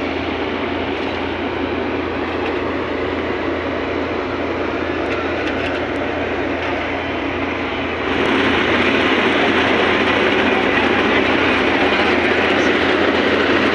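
Steady engine and machinery noise, with no clear rhythm, turning louder about eight seconds in.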